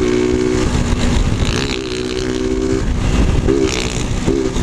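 Small motorcycle with a loud 'de lata' tin exhaust running at high revs: a steady droning note that shifts pitch briefly a few times, with short wobbling changes near the end, over the rush of wind from riding.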